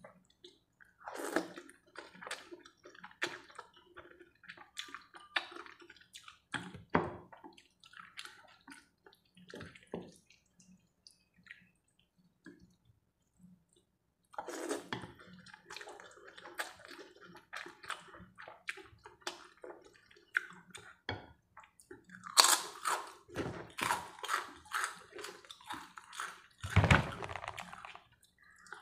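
Close-miked slurping and chewing of chicken noodles: many short smacking mouth sounds, with a few seconds' pause around the middle and louder slurps in the last third.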